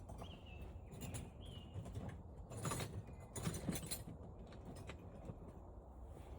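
Faint clicks and light rattles of hand tools and small metal parts being handled, a few louder clatters in the middle. Two brief, faint high chirps sound in the first second and a half.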